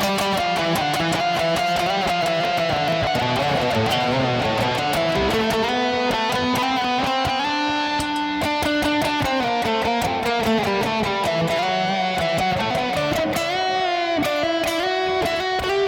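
Electric guitar played through a pedalboard of effects pedals: sustained, overdriven-sounding lead notes with string bends that slide the pitch up and down.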